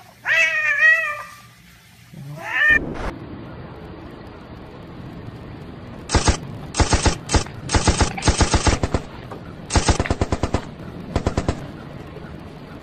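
A cat meowing twice, then a cat chattering: several quick runs of rapid clicking.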